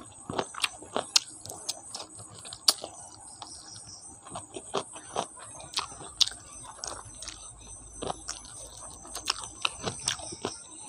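Close-miked eating sounds: wet chewing and lip smacking of rice and curry eaten by hand, an irregular run of sharp clicks and smacks.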